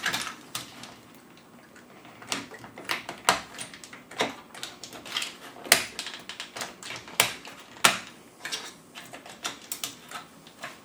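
An Amiga keyboard's spacebar being wedged and prised off with a tool: irregular sharp plastic clicks and clacks, with some scraping, as the key and its springs and stabilizer bar work loose.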